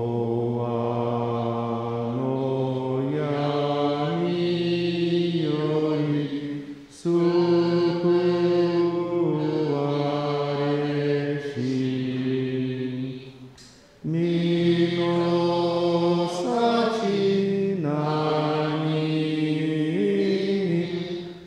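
Slow Buddhist liturgical chant sung in long held notes that step from pitch to pitch, in three phrases of about seven seconds each with a short break between them.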